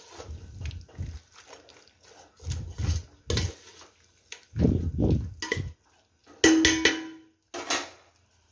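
Steel spoon stirring thick chicken masala in a large steel pot: irregular scrapes and knocks against the pot, one with a short metallic ring about six and a half seconds in.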